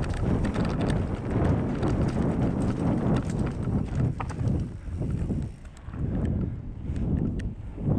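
Mountain bike rattling and clattering as it rolls over roots and dirt, with wind buffeting the microphone. About five seconds in, once the bike is on smooth pavement, the rattling mostly stops, leaving gusting wind rumble and a few light ticks.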